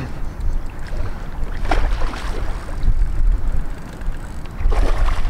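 Wind buffeting the microphone: a steady low rumble with two louder rushes of noise, one about two seconds in and one near the end.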